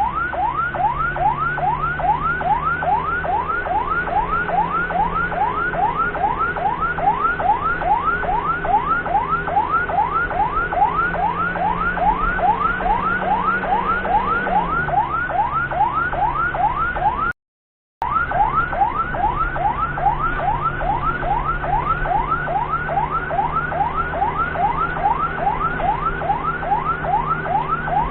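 Ambulance siren on its fast yelp setting, a rapidly repeating rising wail, over the steady running of the vehicle's engine, whose note drops about halfway through. The sound cuts out completely for about half a second a little past the middle.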